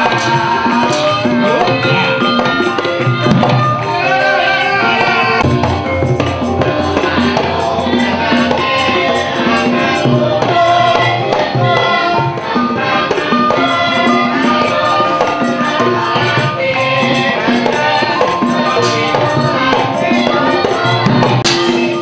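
A Javanese gamelan ensemble playing: bronze metallophones and gong-chimes ring out many struck notes over a drum, with men's voices singing along.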